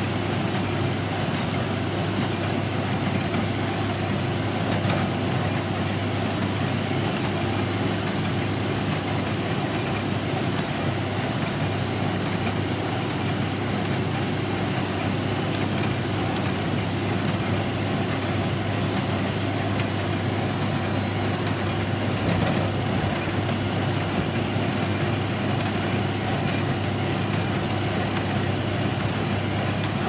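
Farmall 806 tractor running steadily in the field, pulling and driving an IH 47 square baler that is picking up and baling hay.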